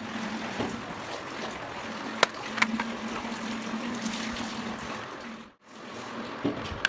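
Toy car's small electric motor and gears running with a steady hum under a rushing noise, with a sharp click about two seconds in and another shortly after; the sound cuts out briefly near the end.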